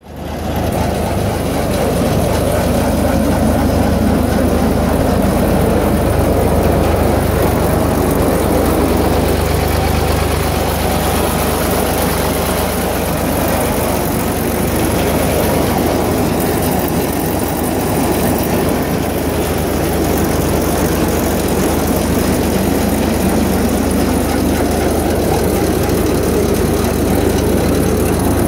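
Tractor engine running steadily, a constant low hum.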